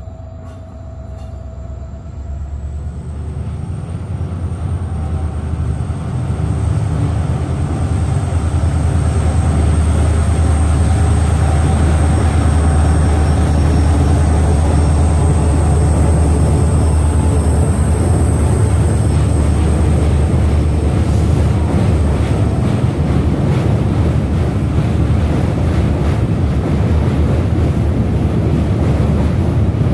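Diesel-hauled passenger train crossing a steel truss bridge. The locomotive's rumble grows louder over the first several seconds as it comes onto the bridge, then the coaches' wheels run on in a steady loud rumble and clatter over the steel spans. A thin high whine sits over the first two-thirds.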